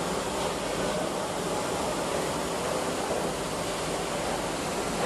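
Steady, even background noise like a machine or fan running, with no distinct events.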